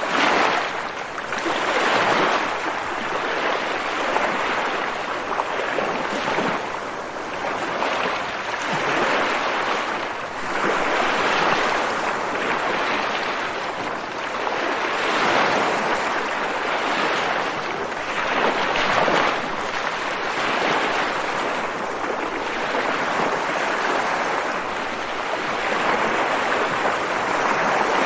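Waves washing in continuously, each surge swelling and easing every two to four seconds.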